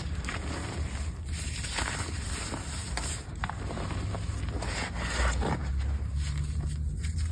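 Hands pressing and squeezing into deep loose cornstarch and Bon Ami powder, giving soft irregular crunches as the powder packs and crumbles, over a low steady rumble.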